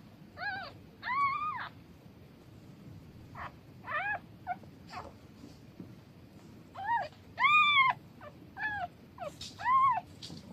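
Newborn kitten meowing in a run of about ten short, high-pitched cries, each rising and then falling in pitch. The cries come in three clusters, and the longest and loudest is a little past the middle.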